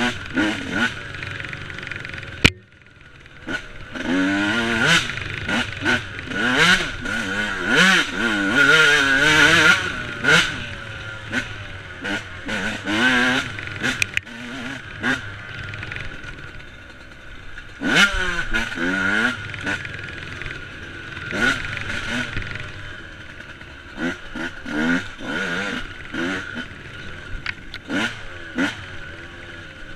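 Yamaha YZ125 two-stroke single-cylinder engine revving hard, its pitch climbing through each gear and falling off between shifts, heard from a helmet camera. About two and a half seconds in there is a sharp knock, and the engine goes briefly quiet as the throttle is shut.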